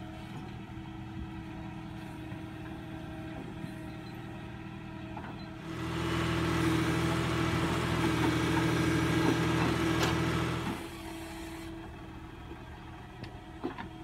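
Tractor diesel engine powering a backhoe attachment, running steadily, then louder for about five seconds in the middle with a rushing noise added as the loaded bucket swings over and dumps soil into a tractor trolley.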